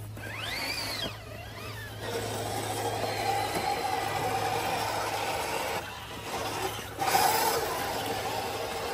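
Electric motor and gear whine of a 1/10-scale RC crawler driving. Near the start the pitch rises and falls once as the throttle is pulsed; after that the whine runs steadier, drops out briefly twice about two-thirds of the way through, then comes back louder.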